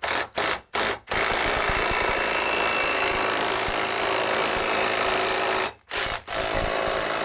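Cordless impact wrench hammering hard, pushing a bearing separator down to try to pull a wheel bearing's inner race off a VW Rabbit front spindle, without moving it. A few short blips come first, then a long continuous run from about a second in, a brief stop, and another run near the end.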